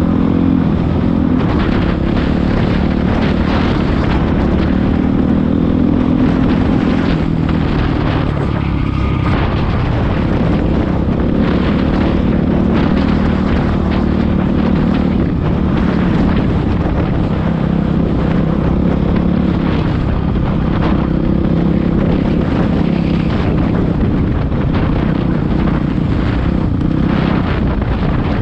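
Dirt bike engine running under way over rough grassland, heard from the bike itself, its pitch rising and falling with the throttle, with rattles and knocks from the bumps.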